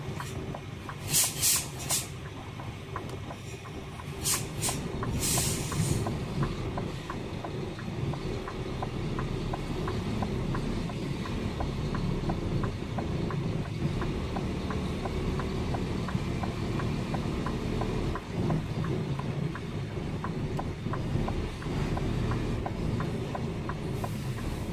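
Heavy lorry's diesel engine running steadily as the truck creeps along a rough site road, with several short air hisses from the brakes in the first six seconds.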